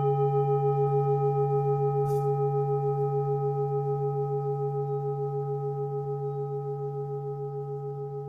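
A singing bowl ringing after being struck, its several tones held steady with a pulsing wobble and slowly fading away.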